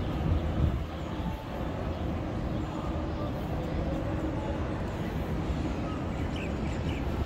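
Steady outdoor urban background noise with a low rumble, typical of nearby street traffic.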